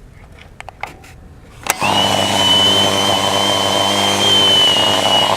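A click, then the bare universal motor of a Bosch GAS 20 L SFC vacuum cleaner switched on about two seconds in, running steadily with a hum and a high whine. On this test it draws too many amps, which the repairer traces to a shorted armature winding.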